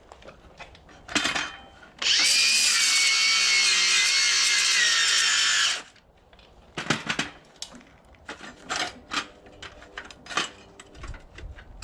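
Small plasma cutter firing: a loud steady hiss with a high whine that starts about two seconds in, runs for nearly four seconds and cuts off suddenly. A few clicks and knocks come before and after it.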